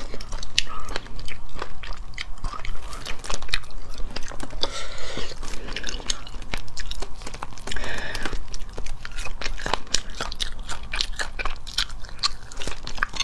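Close-miked eating of cooked crustaceans: shells cracking and being pulled apart by hand, with biting and chewing of the meat. Many sharp cracks follow one another quickly.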